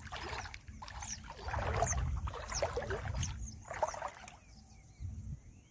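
Shallow river water sloshing and splashing around a person's legs as he wades and bends to the surface, in several uneven surges that die down near the end.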